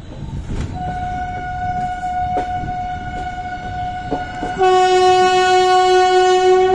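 Air horn of an oncoming train, one long held blast over the rumble of the train running. A single high note comes in about a second in, and a louder, lower note joins it about four and a half seconds in.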